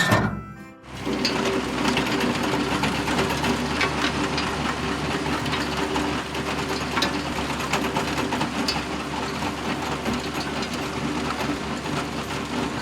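A small motor running steadily with a whirring rattle, starting about a second in.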